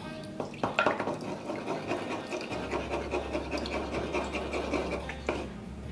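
A spatula stirring and scraping vegan mayonnaise thinned with almond milk in a wooden bowl: steady wet scraping and swishing, with a couple of sharp knocks about a second in.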